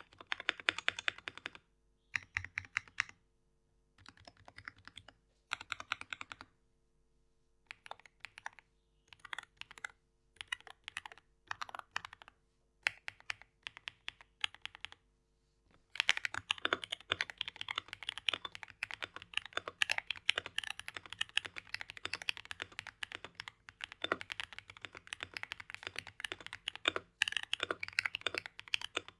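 Typing on a stock, unmodified Akko MOD007 PC mechanical keyboard: keystrokes in short separate bursts at first, then steady fast typing from about halfway in.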